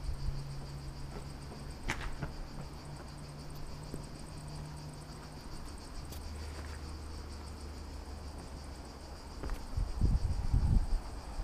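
Insects chirring steadily in a high, fast-pulsing chorus, with a faint low hum underneath. About two seconds in there is a sharp click, and near the end come a few loud low thumps and rustles.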